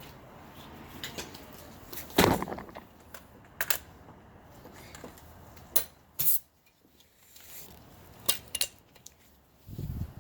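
Tools and metal parts being handled: a series of scattered clinks and knocks, the loudest about two seconds in, with a dull thud near the end.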